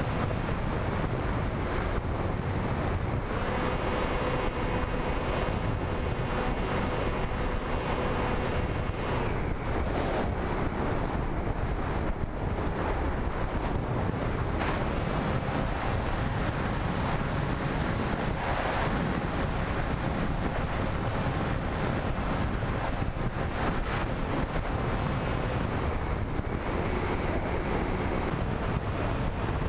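Steady wind rushing over the microphone of a radio-controlled flying wing's onboard camera in flight, with a faint whine from its motor and propeller that comes and goes.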